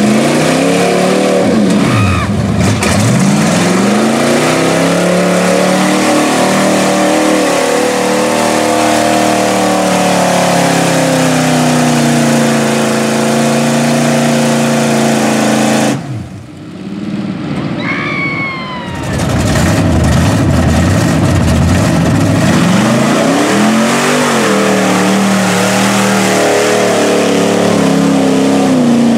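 Lifted Chevrolet pickup engines revving hard in deep mud, the pitch rising and falling again and again as the throttle is worked. Just past the middle the sound briefly drops and goes quieter, then another truck's engine revs up loudly.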